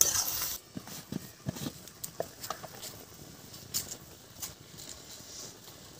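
Steel spatula stirring vegetables frying in a steel kadai, stopping after about half a second. Then a scattering of light taps and knocks, with quiet frying going on underneath.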